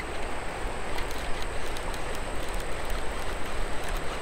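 Baitcasting reel being cranked to bring in line, a steady whirring noise with faint ticks.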